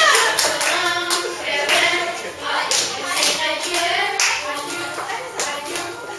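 A group of people clapping along in a steady rhythm, about three claps a second, with voices over the clapping.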